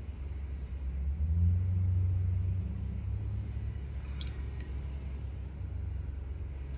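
A steady low rumble, louder between about one and three seconds in, with a few faint clicks near the middle.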